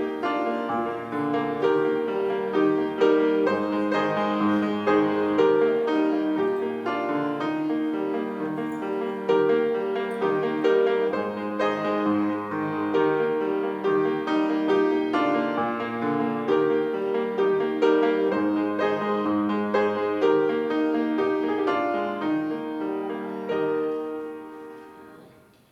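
Piano playing a slow piece of sustained chords and melody, dying away near the end.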